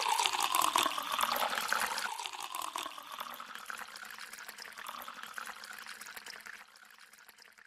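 Water pouring in a thin stream into a double-walled glass tumbler, splashing as the glass fills; the sound fades gradually and dies away near the end.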